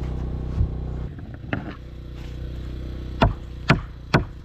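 A hammer knocking on the edge of an OSB plywood subfloor sheet to seat it: five sharp knocks, the last three loudest and about half a second apart. Under them an engine runs steadily, dropping in level about a second in.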